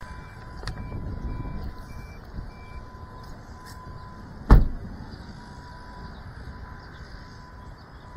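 Five short electronic beeps, evenly spaced about two a second, over a faint steady tone and low rumble, then a single sharp knock about halfway through.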